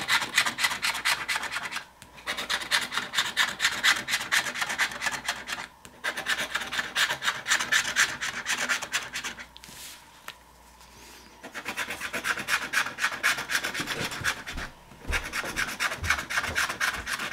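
The latex coating of a scratch-off lottery ticket being scratched off in quick rasping strokes. The scratching comes in runs with brief pauses, the longest about two seconds near the middle.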